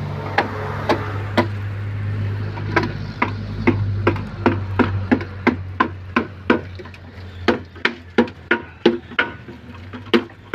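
Repeated sharp strikes, about two to three a second, over a steady low hum that fades out about halfway through.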